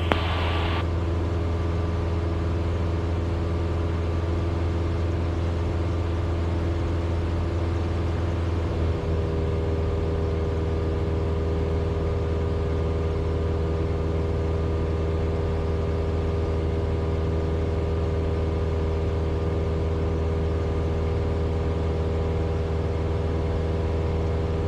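Cessna 172's piston engine and propeller droning steadily in flight, with a strong low hum and several steady tones above it. About nine seconds in, the tone changes slightly and then holds steady again.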